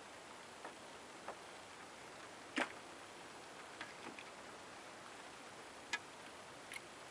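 A handful of light, irregular clicks and knocks from drink cans and a drinking glass being handled, the loudest about two and a half seconds in, over a faint steady hiss.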